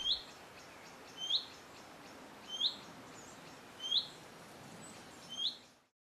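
Common redstart giving its huiet call, a short upward-sliding whistle repeated five times about every 1.3 seconds.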